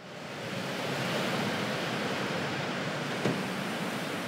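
Street traffic noise as a car drives past, a steady rushing hiss of tyres and engine, with one sharp click about three seconds in.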